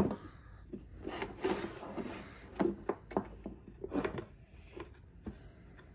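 Onefinity CNC controller's circuit board and end panel being slid out of the enclosure, scraping along its rails in short irregular strokes, with a few clicks and knocks.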